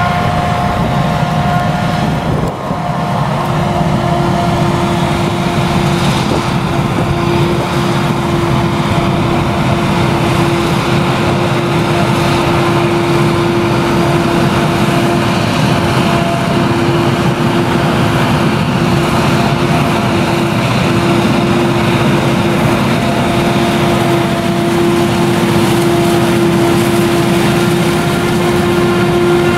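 Claas Jaguar 970 forage harvester with its MAN V8 engine running under load while chopping sorghum with an Orbis 750 header, a steady machine noise with a steady whine that sets in a few seconds in.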